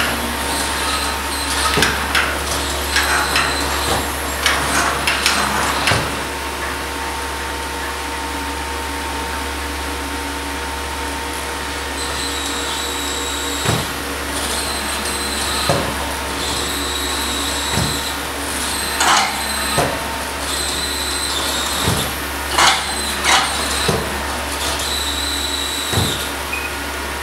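NASA Valkyrie humanoid robot's electric joint motors whining in short spells as it moves, with occasional knocks, over a steady machine hum.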